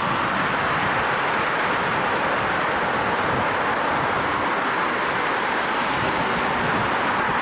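Steady, even road noise, a continuous rushing sound with no separate events.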